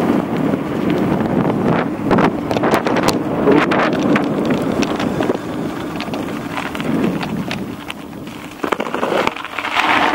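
Wind buffeting the microphone of a camera on a moving bicycle, over the rolling noise of its tyres on a gravel road, with many scattered clicks of loose stones under the wheels.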